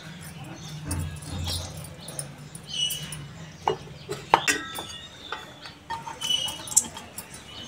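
Stainless steel bowls being handled and brushed inside with oil using a silicone brush: light scrapes and scattered small metallic clinks, some with a brief ring, over a faint steady low hum.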